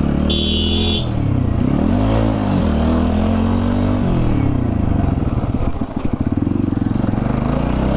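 TVS Apache RTR 160 4V's single-cylinder engine running at low speed, its revs rising and falling several times as the throttle is eased on and off over a rough, potholed road. A brief high-pitched sound comes about half a second in.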